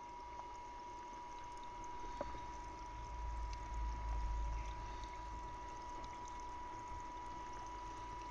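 Charging lead-acid batteries fizzing and bubbling as they gas off hydrogen, a faint trickling hiss, with a steady high electronic whine from the charging gear on top. A low rumble swells briefly midway.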